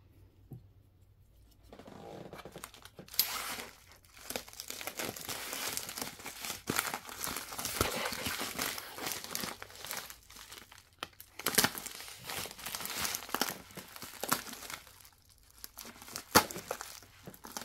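Plastic padded USPS Priority Mail envelope crinkling and rustling as it is picked up, turned over and handled, starting about three seconds in. Near the end a few sharp clicks as a knife is put to the envelope to cut it open.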